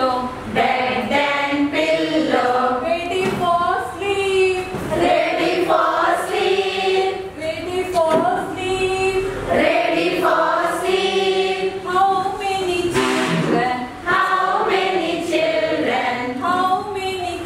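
A group of adults, mostly women's voices, singing a song together as one melody.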